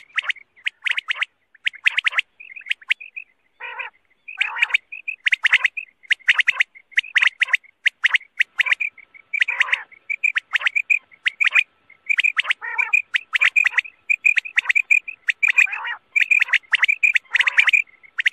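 Quail calling: a long run of short, sharp chirping notes, a few per second with brief pauses, the call played to draw quail in for hunting.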